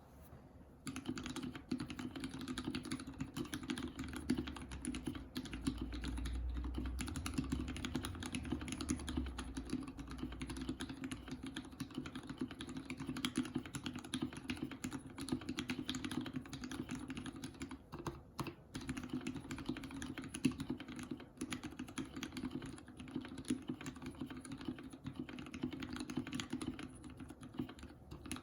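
Continuous typing on a TX-75 V2 custom mechanical keyboard with Krytox 205g0-lubed Gateron Ink switches in a brass plate and EPBT PBT keycaps: a dense clatter of keystrokes that starts about a second in and pauses briefly about two-thirds of the way through.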